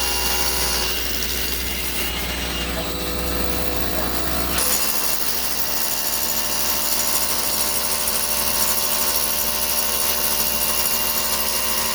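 Foundation-repair rig's equipment running steadily: a machine hum with several steady whining tones, its deep rumble dropping away about four and a half seconds in.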